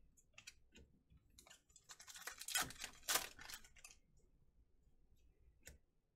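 Glossy trading cards being slid off a stack and flipped through by hand: light clicks and papery snaps of card against card, with a denser run of sliding about two to four seconds in.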